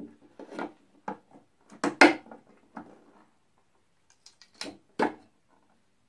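Metal lid of a paint can being pried open with a hand tool: a string of sharp metal clicks and knocks, the loudest about two seconds in and another near five seconds, as the lid comes free.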